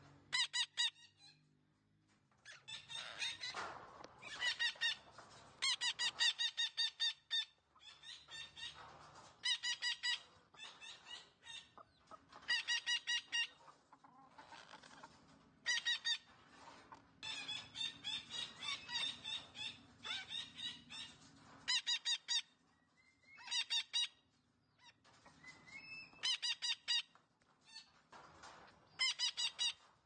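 A parakeet giving loud, harsh squawking calls in quick runs of notes, bout after bout every second or two.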